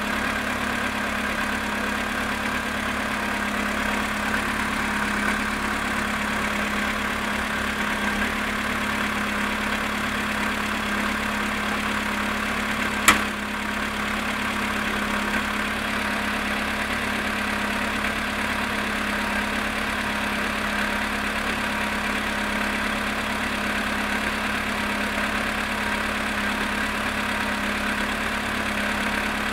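Volkswagen Polo sedan engine idling steadily while it warms up after a cold start at −7.5 °C; the engine is being recorded for a knock the owner hears from it. A single sharp click comes about 13 seconds in.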